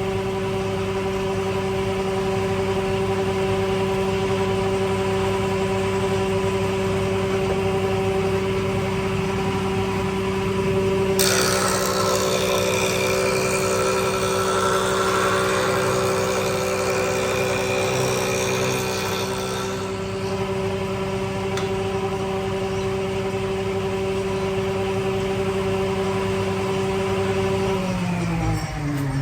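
Electric woodworking machine running steadily with a constant motor whine. From about 11 s to 20 s a harsher noise rides on top as timber is fed through and worked. Near the end the machine is switched off and its pitch falls as it spins down.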